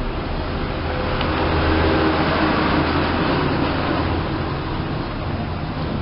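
Steady low rumble and hiss with an underlying hum, swelling slightly from about one to four seconds in.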